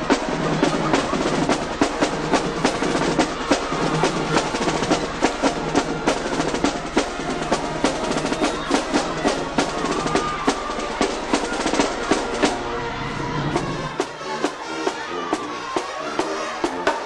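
Music driven by loud drumming, snare and bass drum beating a fast, steady rhythm. The deep bass drops out about fourteen seconds in while the hits carry on.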